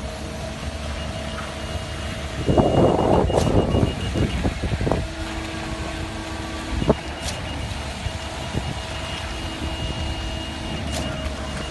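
Heavy construction machinery running steadily, with a burst of scraping and clanking a few seconds in and scattered sharp knocks.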